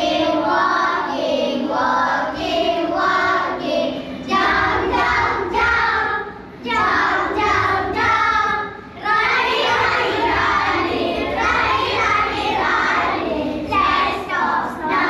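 A group of children singing together in unison, with two short breaks between lines.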